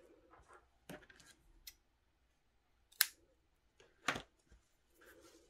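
Crocheted wool scarf handled while a yarn end is worked through it with a tapestry needle: soft rustling of the yarn and fabric, with a few sharp clicks, the loudest about three seconds in.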